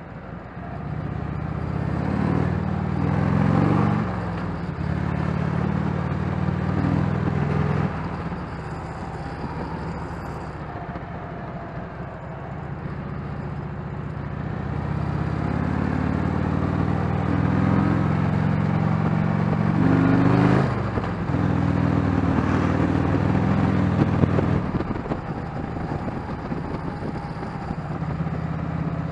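Harley-Davidson Shovelhead V-twin engine under way, the revs climbing and then falling away twice. The bike is set to stock ignition timing with a correct air-fuel ratio for sharp throttle response, a setting that gives little of the loping three-beat idle rhythm.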